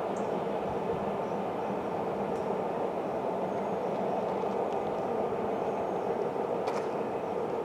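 Steady rumble of a train hauled by the LMS Jubilee-class steam locomotive 45699 Galatea running on the main line, with no distinct exhaust beats standing out.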